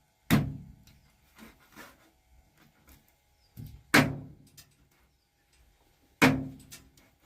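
Three sharp knocks or bangs, about three seconds apart, each dying away over about half a second; a lighter knock comes just before the second.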